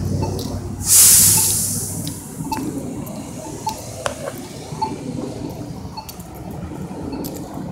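Street traffic passing, with a sudden loud burst of air hiss about a second in that fades away over the next second.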